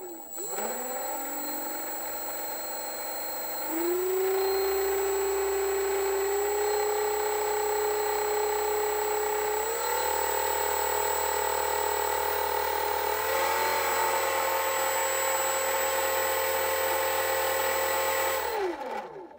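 A 900 KV brushless outrunner motor spinning an 11-inch propeller on a thrust-test stand, making a steady whirring whine. The throttle is raised in four steps, so the whine rises in pitch at each step, and then it spins down near the end.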